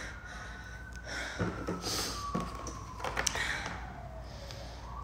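A thin plastic water bottle being handled and drunk from, giving scattered crinkles and clicks. Behind it a faint siren wails, falling slowly in pitch and starting to rise again near the end.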